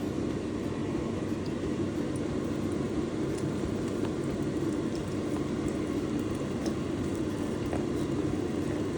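A steady low rushing hum, with a few faint scattered pops from eggs frying in hot oil in a pan.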